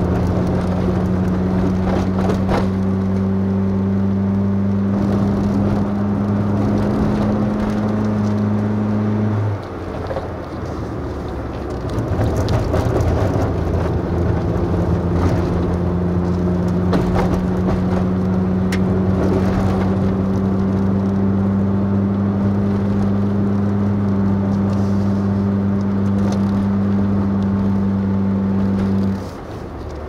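Vehicle engine and road noise while driving uphill: a steady engine hum that breaks off about ten seconds in and comes back a few seconds later, then rises slowly in pitch before dropping away again near the end.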